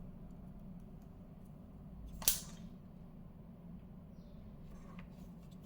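A single sharp click or snap a little over two seconds in, over a faint steady low hum, with a couple of faint ticks near the end.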